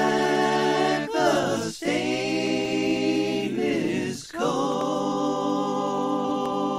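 Unaccompanied voices singing, a capella, in long held chords that change about three times.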